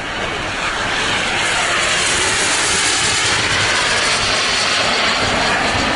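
Two giant-scale RC Viper Jet models, each powered by a model gas-turbine engine of about 19 kg thrust, passing low in formation: a loud jet hiss and whoosh that swells about a second in and then holds steady.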